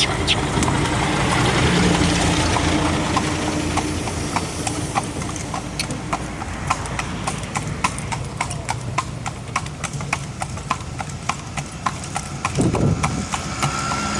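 A cart horse's hooves clip-clopping in a steady trotting rhythm, sharp regular clicks over a steady low rumble of the moving cart.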